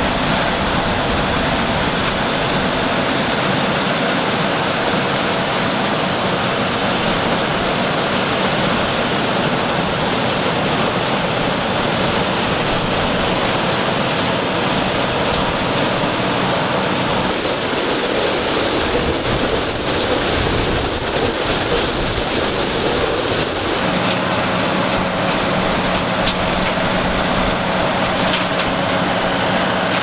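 1977 Gleaner M2 combine running while it harvests corn: engine and threshing machinery make a steady, dense noise with a couple of faint steady tones in it. The mix changes abruptly twice, about 17 and 24 seconds in.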